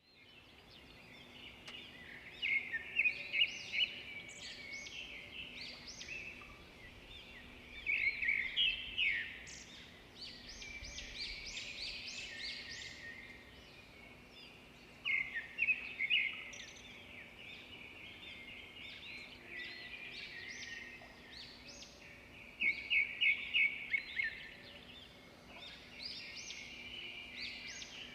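Several birds singing and chirping, with loud clusters of rapid, repeated chirps about every six or seven seconds over steady softer birdsong.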